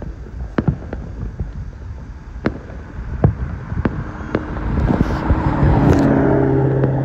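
Distant fireworks going off, a string of sharp bangs every half second or so over a low rumble. About four and a half seconds in a car passes close by on the road, swelling to the loudest sound near the end, with a low steady engine hum.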